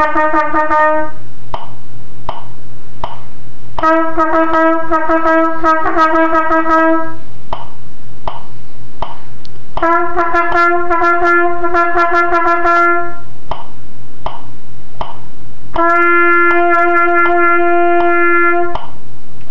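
Trumpet playing a slow articulation exercise: phrases of about three seconds of tongued notes repeated on the same mid-range pitch, each phrase followed by a pause of about three seconds. During the pauses, regular ticks keep time.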